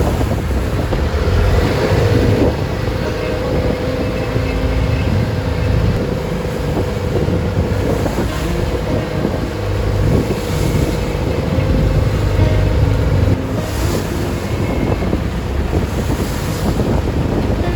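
A wooden motorboat's engine drones steadily under heavy wind buffeting on the microphone, with seawater rushing and splashing against the hull in repeated surges every few seconds as the boat meets rough waves.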